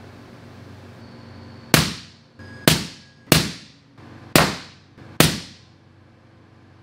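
Five suppressed rifle shots from a 6.5 PRC rifle, each a sharp report with a short decaying tail, spaced well under a second apart.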